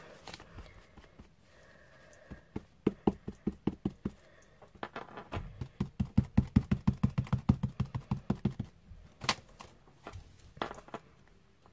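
A paint-loaded sponge dauber pounced through a stencil onto cardstock: a run of quick, even taps, about five a second, with a couple of sharper knocks near the end.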